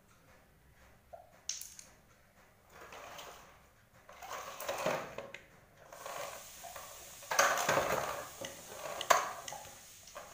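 Hard plastic toys, stacking rings and a toy car, knocking and clattering on a tiled floor as a toddler handles them, with a sharp knock about a second and a half in, a louder jumble of clatter past halfway, and a single sharp click near the end.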